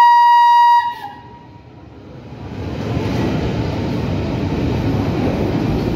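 Historic Berlin S-Bahn train sounds one short, loud, single-pitched horn blast, cut off under a second in. The rumble of the train rolling into the underground station then builds steadily.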